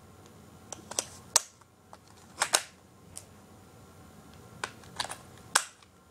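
Scattered sharp plastic clicks and clacks, about nine in six seconds, from a plastic toy blaster being handled while its battery compartment is worked on.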